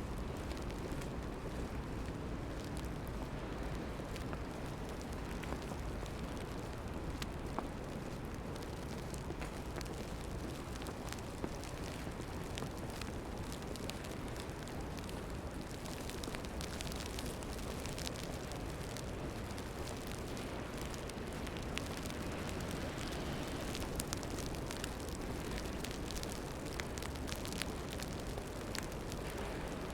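Steady rumbling outdoor noise of a snowy city street, with scattered faint crackling ticks that come more thickly in the second half.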